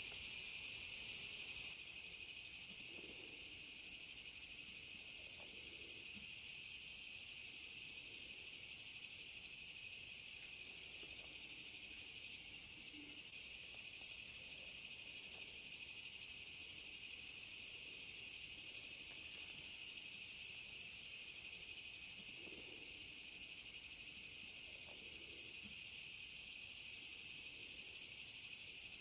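Night insect chorus: crickets and other insects trilling steadily and without a break.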